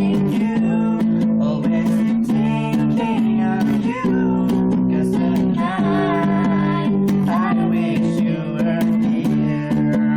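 Music: a song played on guitar.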